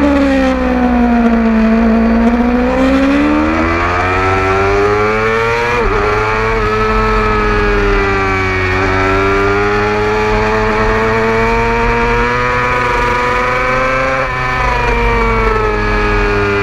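A 600cc racing motorcycle's engine heard from onboard. Its pitch falls for the first couple of seconds as the bike slows into a corner, then climbs as it accelerates, with a sharp blip about six seconds in. The pitch holds fairly steady through the middle, dips briefly near the end, then rises again.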